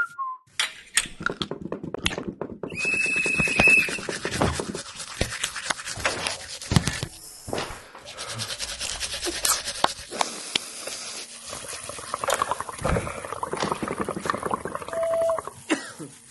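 A quick succession of human activity sound effects changing every second or two: many short clicks and knocks over shifting noise, with a steady high tone lasting about a second about three seconds in.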